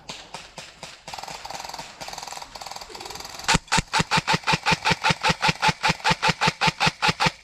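Airsoft gun firing: a fast run of shots at first, then, about three and a half seconds in, loud, evenly spaced sharp shots about six a second that stop abruptly.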